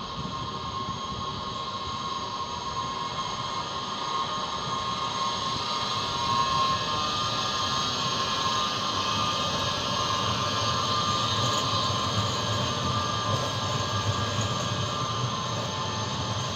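Škoda 13T low-floor electric tram running past on street track: steady wheel-on-rail rumble with a high electric whine from its traction drive, growing louder over the first several seconds as it draws near.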